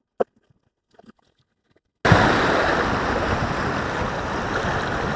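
Near silence broken by a single sharp click and a few faint ticks. About two seconds in, the sound of sea surf washing against the rocks cuts in abruptly, with wind noise on the microphone, and runs on steadily.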